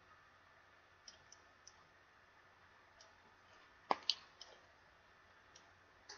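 Faint, scattered clicks of a computer mouse over a low hiss, about nine in all. The loudest two come close together about four seconds in.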